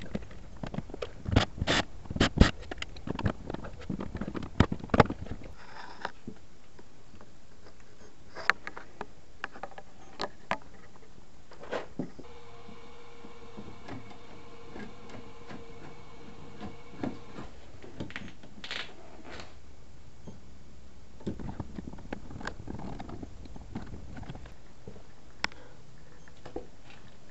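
Clicks and knocks of hand-work with tools and fittings on an electrical box, dense for the first five seconds and scattered after that. A faint steady hum comes in for a few seconds in the middle.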